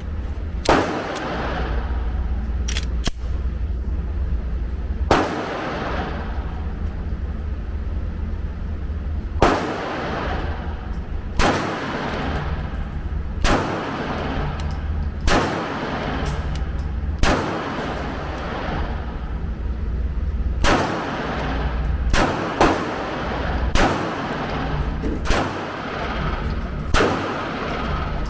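Polymer80 Glock 19-pattern 9mm pistol being test-fired: about a dozen single shots spaced one and a half to four seconds apart, each with a short ringing tail, over a steady low rumble.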